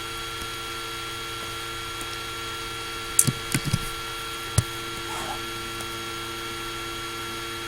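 Laptop cooling fan running steadily, with a constant hum and several steady whining tones. A few short sharp clicks come between about three and four and a half seconds in.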